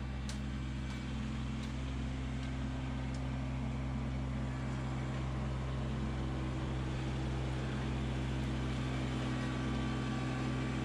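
Kubota LX2610 compact tractor's three-cylinder diesel engine running steadily as the tractor drives up, growing slightly louder as it approaches.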